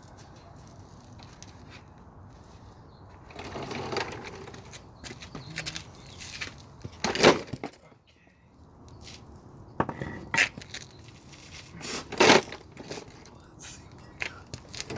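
Hammer blows and prying on a Dana 35 rear differential cover held on by sealant: two loud metallic strikes with a short ring, about 7 and 12 seconds in, among lighter knocks and scraping.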